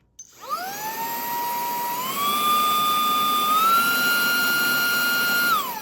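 Brushless motor of a Zarimi cordless handheld vacuum spinning up to a high whine, stepping up in pitch twice, then switched off and winding down near the end.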